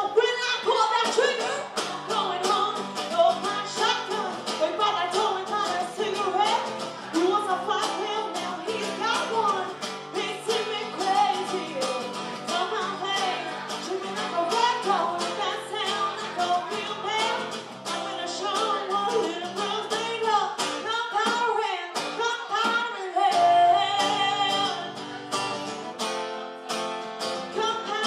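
A live country band playing: a woman singing over guitar and a steady beat.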